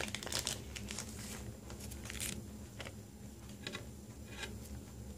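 Faint rustling and a few light clicks of trading cards and plastic sleeves being handled, over a low steady hum.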